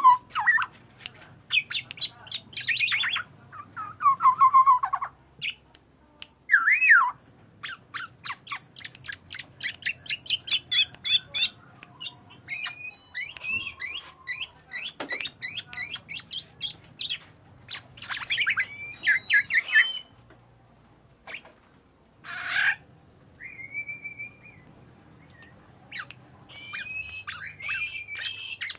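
Black-naped oriole (kepodang) singing and calling in a varied run: short falling whistles, long rapid strings of chattering notes, and one harsh squawk about two-thirds of the way through.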